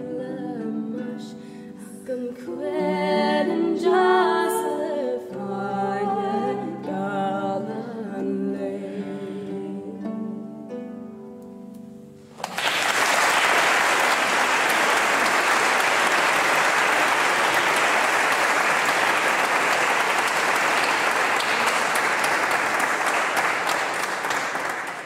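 Voices singing a song to its end. About halfway through, an audience breaks into steady applause that lasts roughly twelve seconds.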